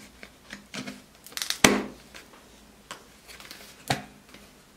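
Snap-on plastic lid of a wipes canister being pressed shut by hand: a few sharp plastic clicks and knocks, the loudest about a second and a half in and another near the end, with light handling noise between.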